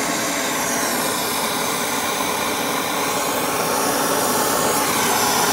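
Air-pressurised diesel stove burner running, with fuel pushed from an air-pressure tank and no blower fan: a steady rushing hiss that holds an even level throughout.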